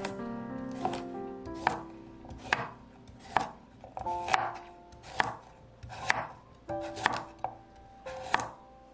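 Santoku knife chopping a carrot into large chunks on a wooden cutting board, with a crisp chop roughly once a second. Light background music plays underneath.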